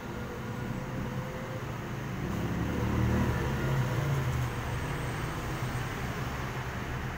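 Street traffic passing: small motorcycles and a motorcycle tricycle going by with a low engine hum that swells about three seconds in, then a jeepney passing.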